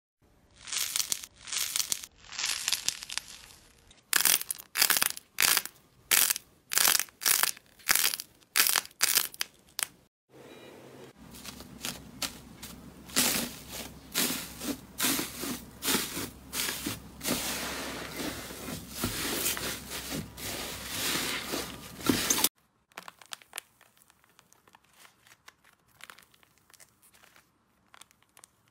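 Close-up ASMR handling sounds. First, a green foam sponge is squeezed repeatedly in short, loud, crackly bursts. Then fingers press slime covered in blue metallic foil with a steady crinkling. Last comes faint crackling as a dried pink clay crust on slime cracks apart.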